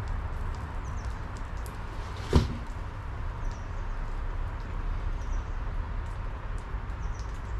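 A steady low rumble with faint bird chirps, and a single sharp knock with a brief ring about two seconds in.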